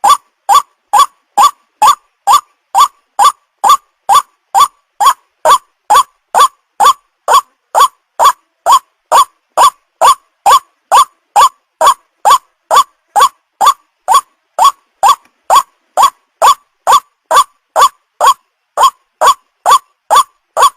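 White-breasted waterhen call played as a lure recording: a short note repeated evenly, about two and a half times a second.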